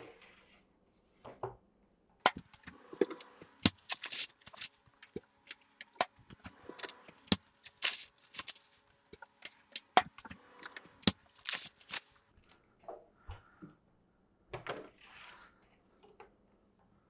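Plastic wrap crinkling as it is pulled off a metal tray, with irregular clicks and clatters of metal trays being slid onto the shelves of a home freeze dryer.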